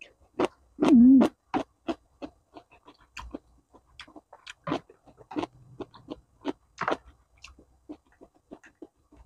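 Close-miked chewing and wet mouth sounds while eating bakso meatball soup: a run of short smacks and clicks, with a short hummed 'mm' about a second in. A metal spoon taps and scrapes in the plastic bowl.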